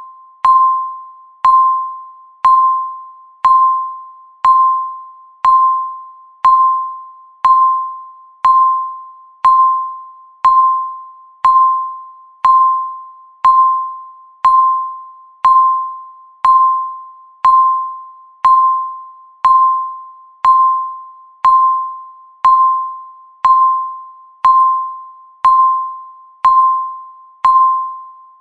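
Countdown timer's electronic beep sounding once every second: a single clear mid-pitched tone that starts sharply and fades away before the next one.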